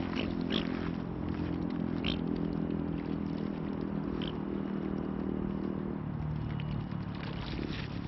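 Mute swans feeding at the water's edge, dabbling and scraping among wet pebbles, over a steady low motor hum that shifts in pitch about six seconds in. Three short high bird calls stand out, at about half a second, two seconds and four seconds in.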